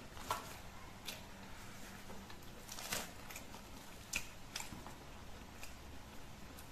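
A person eating with his hand: quiet chewing and mouth sounds, with a few short, sharp smacks and clicks scattered through.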